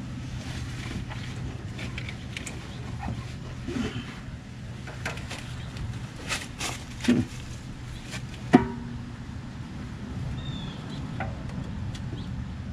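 Scattered knocks and metallic clanks from handling an engine and parts in a golf cart's engine bay, a cluster about six to seven seconds in and the loudest, sharpest knock about a second and a half later, over a steady low hum.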